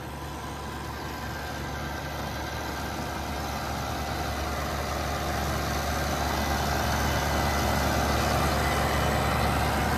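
Mahindra Oja 2127 compact tractor's diesel engine running steadily in low gear, growing gradually louder.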